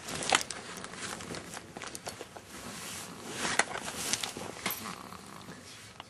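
Snoring: noisy, hissy breaths swelling twice, about three and a half seconds apart, with scattered clicks and rustling throughout.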